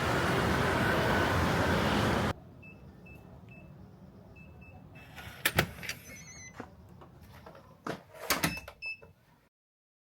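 Steady rushing noise, wind on a camera's built-in microphone, that cuts off suddenly about two seconds in. After it, much quieter, come several short high electronic beeps and a few sharp clicks and knocks; the sound cuts to silence near the end.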